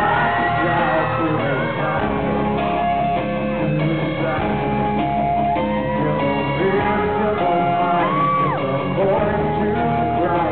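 Live rock band playing, with electric guitar under a male lead vocal that slides up and back down a little past the middle.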